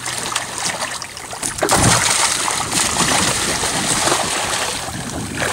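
Blue shark thrashing at the surface beside the boat, splashing water. The splashing grows much louder a little under two seconds in and stays heavy until near the end.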